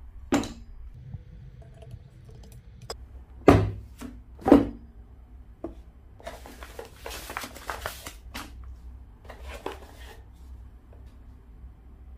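Handling and unboxing noises: scattered clicks and knocks, two loud thumps about three and a half and four and a half seconds in, then a few seconds of rustling and scraping of the cardboard box and its packaging.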